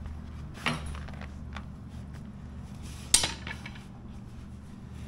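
Steel front sprocket clinking against the motorcycle's output shaft and surrounding metal as it is wiggled into place by hand. There are two sharp metallic clinks, the first a little under a second in and the louder one a little past the middle, with lighter ticks between, over a steady low hum.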